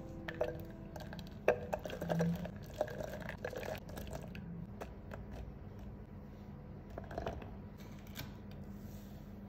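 Chopped chili pepper pieces dropping into a plastic food-processor bowl: a quick run of light taps and knocks, then another short patter a little after the midpoint as more pieces go in.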